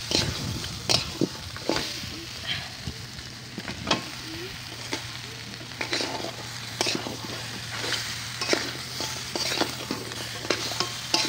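Metal spatula scraping and stirring crab masala and fried potatoes in a metal pan over a steady sizzle of frying oil, with irregular scrapes and clicks of the spatula against the pan.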